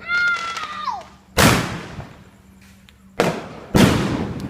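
Firecrackers going off: three sharp bangs, about a second and a half in, then two close together near the end, each trailing off into an echo.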